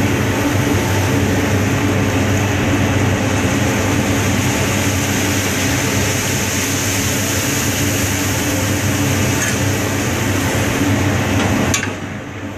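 Steady loud drone of a kitchen ventilation fan with a low hum, dipping slightly near the end.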